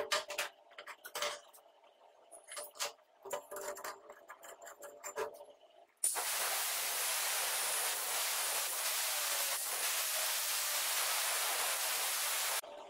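Steel parts clicking and clinking as they are handled. About six seconds in, an angle grinder's abrasive disc starts cutting into a flat steel bar held in a vise, a loud, steady, even grinding noise that stops abruptly near the end.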